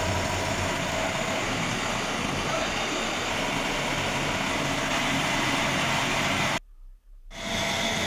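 Milling machine running with its disc cutter cutting a keyway slot into a metal shaft under coolant: a steady machining noise with a few faint steady whine tones. The sound drops out briefly about two-thirds of the way through, then resumes at the same level.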